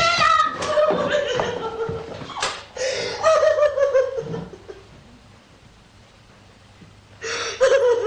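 A woman crying hard: high, wavering sobs broken by catches of breath, a falling wail a few seconds in, then a quieter stretch before another loud sob near the end.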